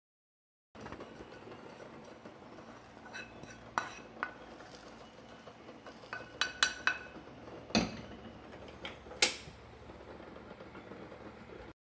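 Wooden spatula scraping toasted grated coconut out of a small nonstick frying pan into a plastic tray, with scattered clinks and knocks of pan and spatula, some ringing briefly; the loudest, sharpest knock comes late on.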